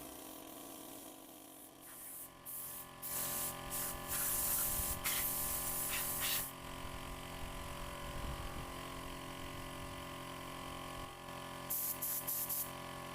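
Air spray gun hissing as paint is sprayed: a few short bursts, then a spray held for about three seconds, and several quick bursts near the end.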